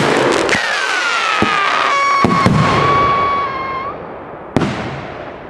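Whistle firework rocket in flight: a loud rushing hiss with a whistle that starts about half a second in, falls in pitch and then holds one steady note for about three seconds before stopping. Several sharp cracks sound along the way, and a single bang comes about four and a half seconds in, after which the hiss fades.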